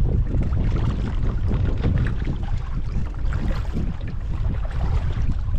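Wind buffeting the microphone with a steady low rumble, over water splashing and lapping irregularly against a paddled kayak.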